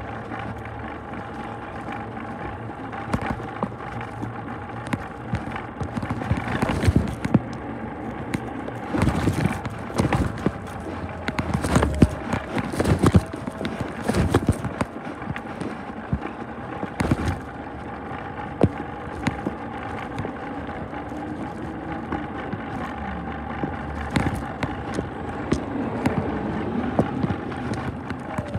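Yard waste truck running with a steady whine, under irregular knocks and rubbing from the camera being handled.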